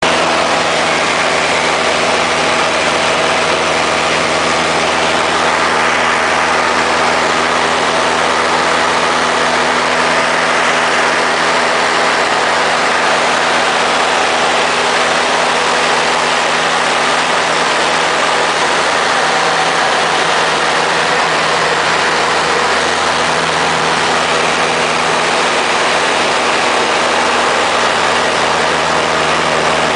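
Extra 230 aerobatic monoplane in flight, heard from inside the cockpit: its four-cylinder Lycoming engine and propeller give a steady drone under loud rushing airflow noise.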